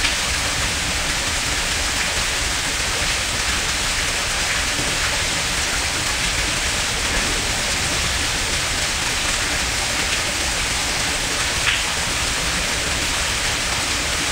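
A steady, even hiss like rain, with one small click near the end.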